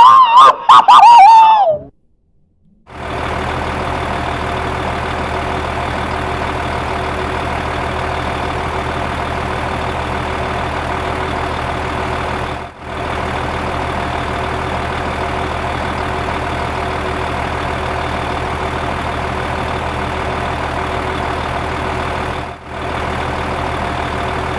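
A loud wavering electronic tone sliding down in pitch, then a steady engine idling sound like a truck's, which drops out briefly twice.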